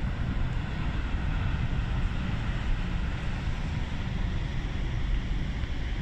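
Steady roar of heavy ocean surf breaking, a deep rumble under an even rushing hiss.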